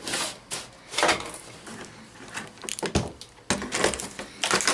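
Cardboard toy box being handled: a series of short, irregular rustles, scrapes and knocks as the box is turned over in the hands.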